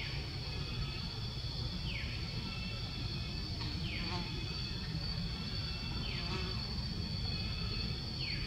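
Steady high-pitched insect drone, with a short falling call repeating about every two seconds, over a low rumble.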